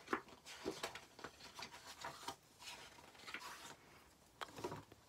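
Paperback picture book being opened and its pages turned and pressed flat: several soft paper rustles, rubs and light taps, with a louder rustle near the end.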